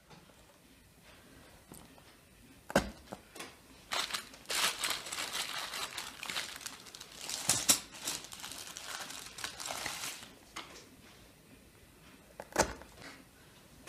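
Plastic packaging crinkling and rustling for about six seconds, with a sharp knock on the table shortly before it and another near the end.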